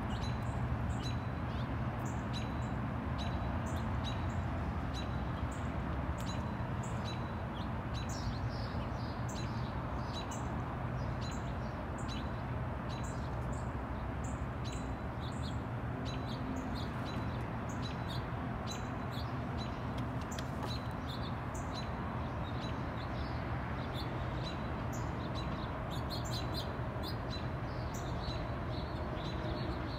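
Small songbirds chirping, many short high chirps scattered throughout, over a steady low outdoor rumble.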